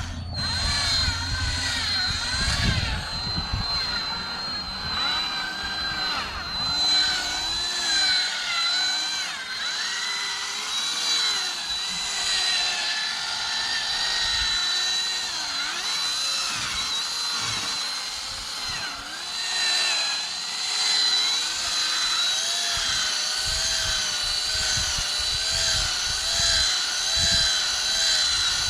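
Power drill spinning a foam buffing pad, polishing scratch-remover compound into a plastic headlight lens. The motor runs steadily, its pitch wavering up and down, with a thin steady high whine on top.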